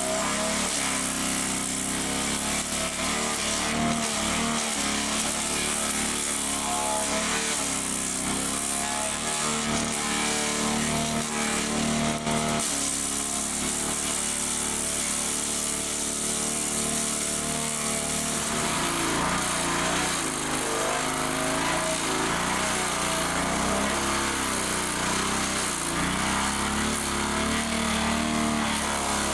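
Remet RTS-300 disc wood chipper running on its combustion engine, a steady, loud mechanical noise whose engine note wavers up and down throughout, shifting in character a little past the middle.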